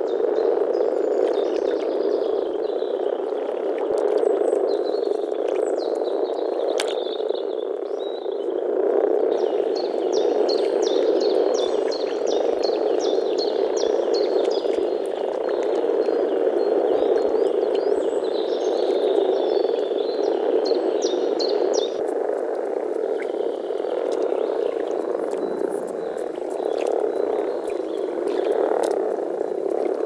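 Chorus of many male European common frogs (Rana temporaria) calling together at a spawning pond. It is a continuous deep grumbling made through their vocal sacs, the males' breeding-season mating call. A thin series of high ticks runs over the middle part.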